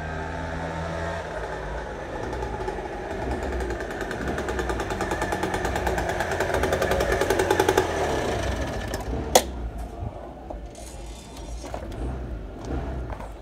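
Lambretta J50's 50cc two-stroke engine being ridden up close. Its exhaust beat grows louder to a peak about eight seconds in, then drops away, and a single sharp click follows shortly after.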